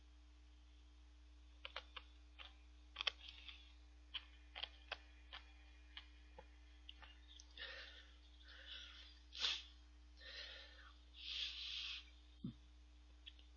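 Close-miked eating sounds from drinking and spooning mango shaved ice (bingsu) stirred with milk from a paper cup: a string of sharp clicks and taps, then several short breathy bursts in the second half.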